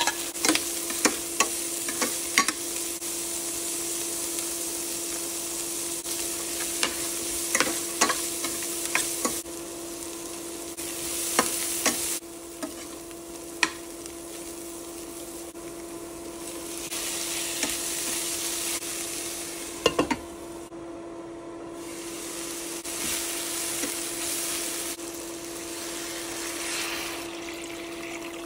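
Diced vegetables sizzling as they sauté in a stainless steel pan, with sharp clacks and scrapes of a metal spoon stirring them against the pan, most frequent in the first half. A steady hum runs underneath.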